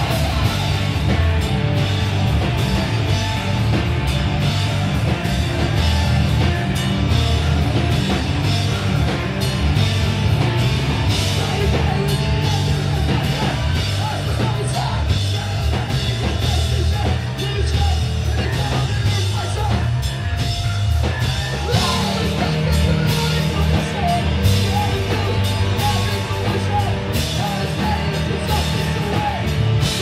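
Hardcore punk band playing live: distorted electric guitar and bass over pounding drums, with shouted vocals. The low end drops away for a few seconds past the middle, then the full band crashes back in.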